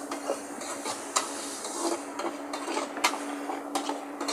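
Kitchen utensils knocking and scraping against cookware in irregular clicks and clatters, over a steady low hum.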